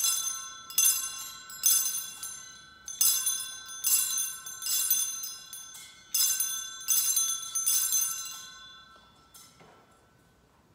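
Sanctus bell rung at the elevation of the chalice after the consecration: nine ringing strokes in three groups of three, each stroke left to ring on, the last group fading away near the end.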